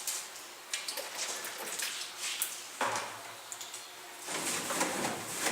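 Scattered knocks and clicks with rubbing noise from a refrigerator being handled and wiped down with a cloth. The loudest stretches of noise come about three seconds in and again near the end.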